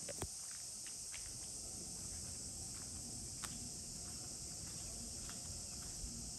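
A steady, high-pitched insect chorus that holds unchanged, with a few faint clicks.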